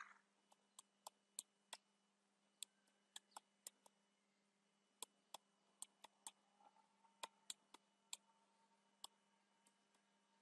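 Computer mouse clicking: sharp, quiet ticks in quick irregular runs of three to six while a map is zoomed in on screen. A faint steady hum lies underneath.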